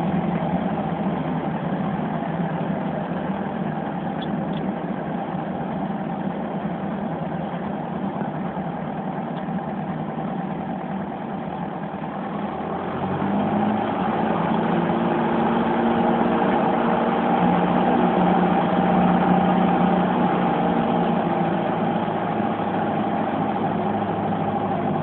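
Piper PA-28's engine and propeller heard from inside the cabin during the landing rollout: a steady hum at low power mixed with wind and rolling noise. About halfway through the engine picks up and grows louder, and stays at that higher level.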